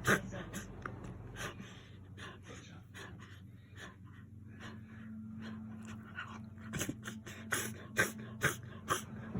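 Miniature dachshund reverse sneezing: a run of short, forceful inhalations through the nose, about two to three a second, louder and closer together near the end. A vet judged it reverse sneezing; the owner puts it down to gum inflammation spreading into the nose.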